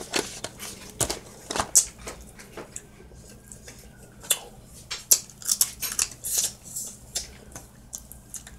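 Steamed Maryland blue crab being cracked and picked apart by hand: an irregular run of sharp shell cracks and snaps, busiest in the first couple of seconds and again midway.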